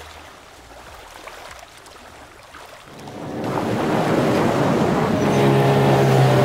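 Small outboard motor driving a dinghy at speed, with water rushing past the hull and wind on the microphone; it comes in about three seconds in and then runs steadily.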